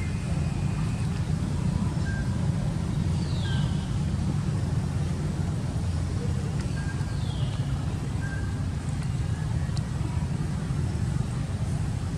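Steady low outdoor rumble, with two short high calls that fall in pitch, one about three and a half seconds in and one about seven and a half seconds in.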